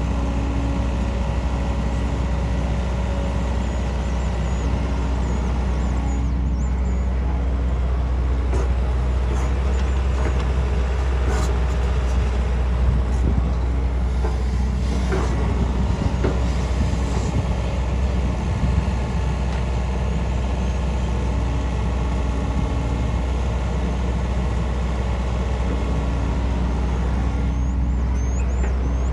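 Construction machine engine running steadily with a low drone and a constant pitch, with a few light clicks and knocks about halfway through.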